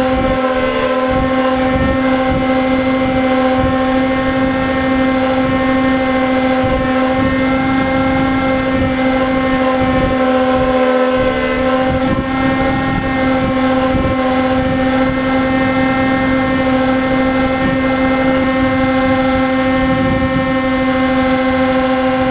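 RC plane's motor and propeller running at a steady cruise throttle, a constant hum that holds one pitch throughout. Wind buffets the onboard microphone in irregular gusts.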